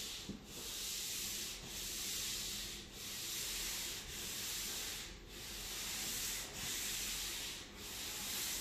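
Wet scrubbing pad rubbing back and forth across a sanded wooden countertop in long strokes, a steady rasping hiss that dips about once a second as each stroke turns; the wood is being washed of sanding residue before staining.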